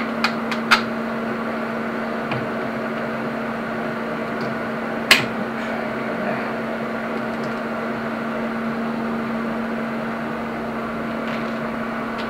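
A steady electrical machine hum, with a few sharp metallic clicks just after the start and a single loud metal knock about five seconds in, as the steel drive shaft is handled in its chuck.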